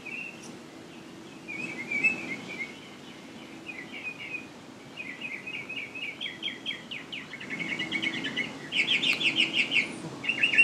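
Songbirds chirping in short repeated phrases that grow louder and quicker, turning into fast runs of rapid notes in the second half.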